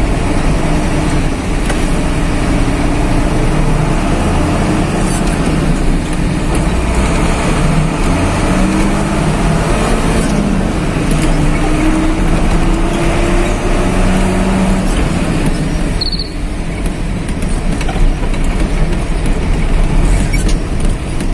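Truck engine and road noise heard from inside the cab while driving, the engine note rising and falling in slow glides as the speed changes. A short high chirp about 16 seconds in.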